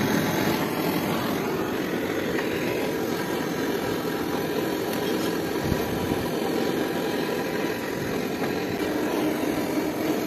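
Electrolux 1.5-ton split AC outdoor unit running, its compressor and condenser fan making a steady mechanical noise during a refrigerant gas charge. A brief low knock about six seconds in.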